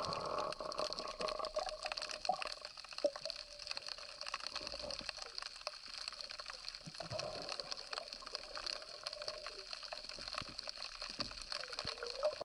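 Underwater sound through an action camera's waterproof housing: a constant crackle of small clicks and hiss, with a faint wavering tone underneath.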